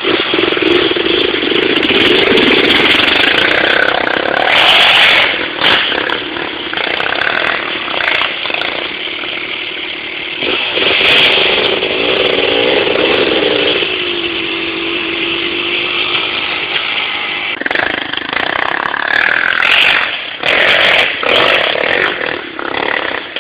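Enduro dirt-bike engines revving hard under load as riders climb a steep hill, the pitch repeatedly rising and falling as the throttle is worked.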